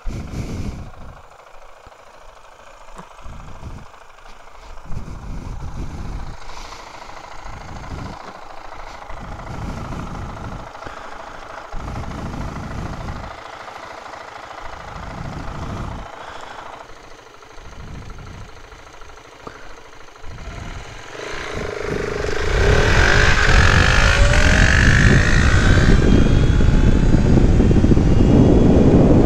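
Husqvarna 701 supermoto's big single-cylinder engine idling in uneven low rumbles. About 22 seconds in, the sound jumps to a loud steady rush of wind as the Zero FX electric motorcycle accelerates hard, its motor whine rising for a few seconds.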